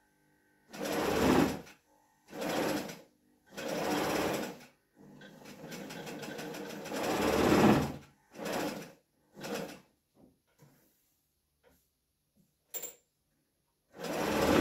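Electric sewing machine stitching a seam through four layers of gauze in short runs, stopping and starting about six times, with one longer run of about three seconds in the middle. A few light clicks come between runs near the end.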